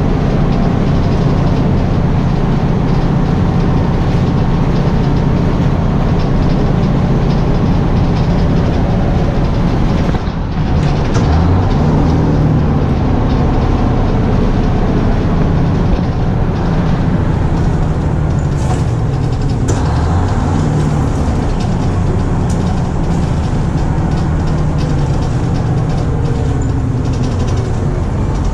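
A 1971 Crown Super Coach tandem-axle school bus running at road speed, its engine and road noise heard from inside the passenger cabin. About ten seconds in the sound dips briefly, then the engine's pitch climbs again.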